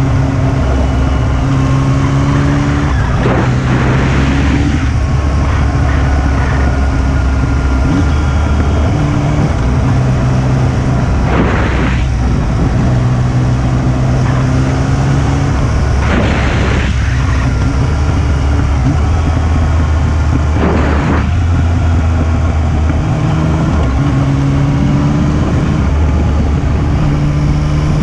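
Yamaha XSR900 motorcycle's three-cylinder engine while riding, its note stepping up and down with throttle and gear changes, with a few short rushes of noise. On closing the throttle it gives a 'fooon' hum that the owner takes for an abnormal engine noise.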